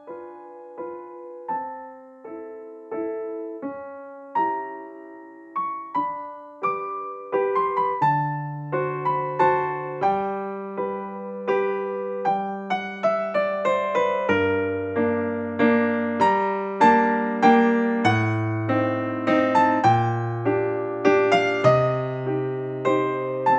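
Background music: a gentle solo piano melody of separate, fading notes, joined about eight seconds in by a lower bass line that fills out the sound.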